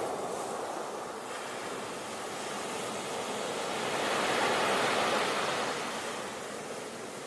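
Sea waves breaking and washing on the shore, one wave swelling to its loudest about four to five seconds in and then easing off.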